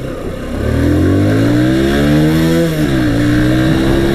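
Hero Honda CBZ's 156cc single-cylinder four-stroke engine accelerating at full throttle, its revs climbing in first gear. The revs drop with an upshift about three seconds in, then start rising again.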